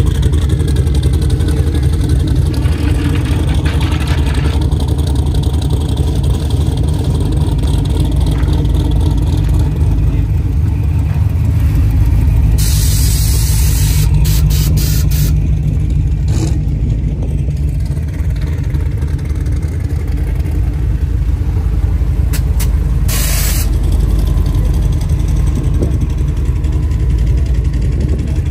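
Trucks' engines running with a steady, heavy low rumble, with a few short noisy bursts about halfway through and again later on.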